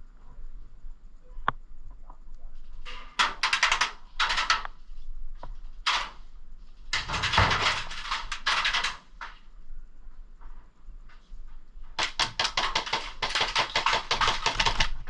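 Airsoft guns firing three full-auto bursts of rapid clicks, the longest near the end, with a few single clicks in between.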